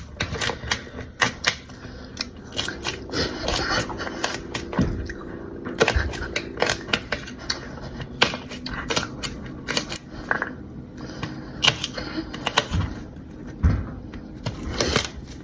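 Kitchen knife chopping peeled garlic cloves: a long run of quick, irregular taps of the blade striking the board.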